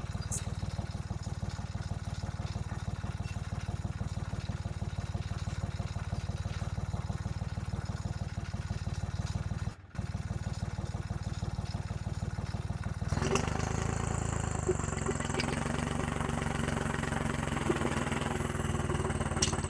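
Tractor's diesel engine running steadily with a fast low chug. It drops out for a moment about ten seconds in, and from about thirteen seconds in it runs louder with a fuller note.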